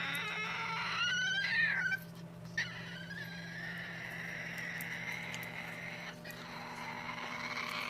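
A pet parrot's call: a pitched, wavering cry about a second in that bends up and falls away, followed by a fainter steady sound.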